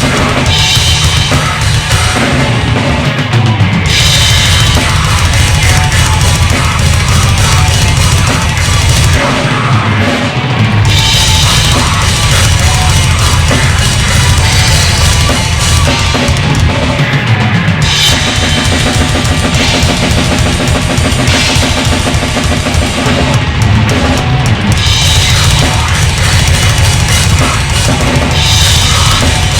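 Heavy rock song driven by a loud drum kit, with bass drum, snare and cymbals keeping a steady beat over the band.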